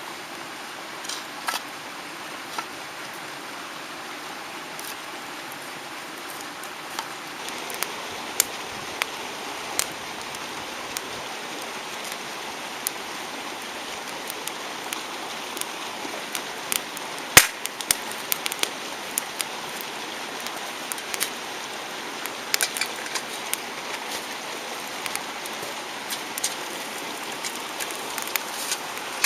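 Wood campfire crackling, with irregular sharp pops over a steady rush of mountain-stream water; one pop, about halfway through, is louder than the rest.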